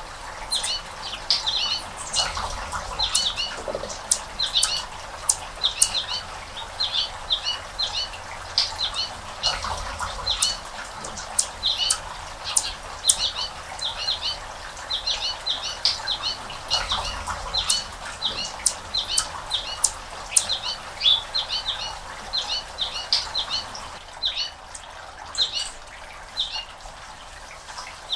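Small birds chirping rapidly and continuously, a steady run of short, high chips. Under them is a faint background rush that swells briefly a few times.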